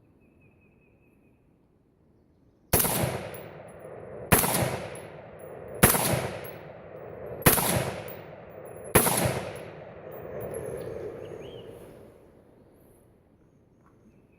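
Five semi-automatic rifle shots from an AR-15 in .223 Remington, about a second and a half apart, each trailing off in an echo. The cast-bullet handloads being fired cycle the action on every shot.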